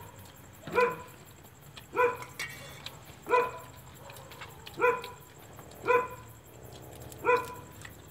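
A dog barking over and over at a steady pace: six short single barks, about one every second and a half.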